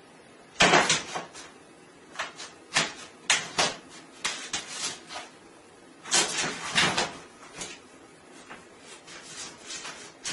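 Plastic slats of a roll-up bathtub cover clattering under a cat's paws as it lands on the cover and shifts about on it. The sound is an irregular string of clicks and knocks, loudest about half a second in, with a cluster around six to seven seconds in.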